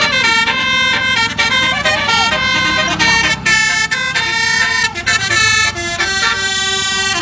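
A bus's telolet horn, a multi-tone air horn, playing a running tune of short held notes that change every fraction of a second, with a few brief breaks, over a low rumble.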